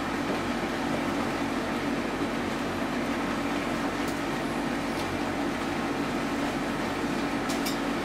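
Steady mechanical hum filling a small room, with a few faint clicks.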